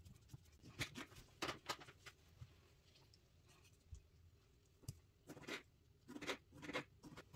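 Faint scraping and tapping of a knife cutting an orange on a glass cutting board: a few short strokes about a second in and a group of them near the end.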